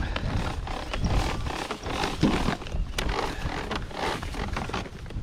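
Junk being handled and shifted in a rubbish pile: a run of scrapes and irregular knocks over a low rumble.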